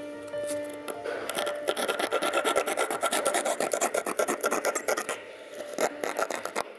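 Quick short strokes of a small hand tool rasping into the edge of a thin wooden strip, cutting away wood to shape a ratchet pawl. The strokes start about a second in, come thick and fast for a few seconds, then thin out near the end.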